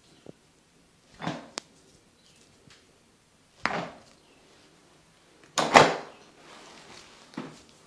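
Sudden, sharp sounds from a head and body massage with joint cracking: four short hits about two seconds apart, the loudest near the end, with a crisp click just after the first.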